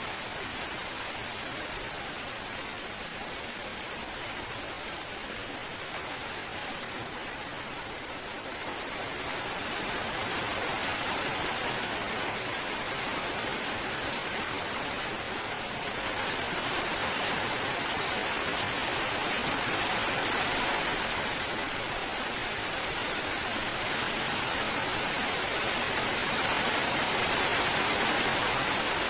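Steady heavy rain, an even hiss of falling water that swells a little louder about a third of the way in and again past the middle.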